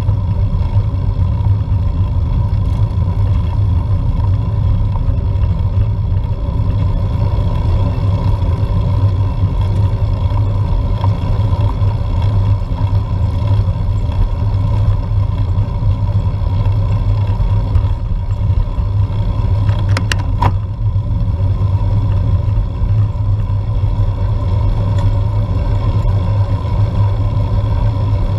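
Steady low rumble of a road bike rolling uphill on tarmac, picked up through a bike-mounted GoPro in its housing, with a steady hum over it. A brief clatter about twenty seconds in.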